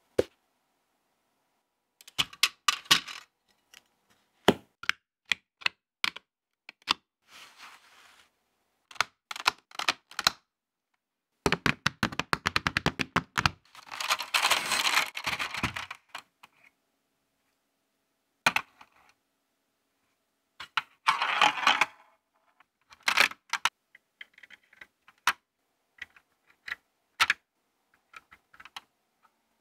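LEGO Technic plastic pieces being handled and snapped together: scattered sharp clicks and clacks, a quick run of clicks about halfway through, and a few short bursts of rattling.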